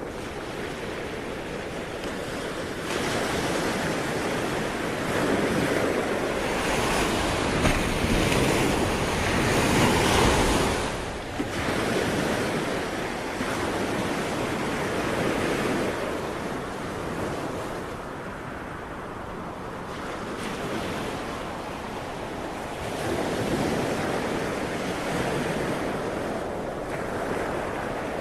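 Sea waves breaking and washing up the shore, rising and falling in long surges. The largest comes about ten seconds in, and another swells near the end.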